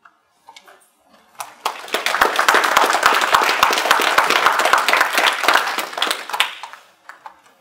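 Audience applauding, starting about a second and a half in, running for about five seconds and then dying away.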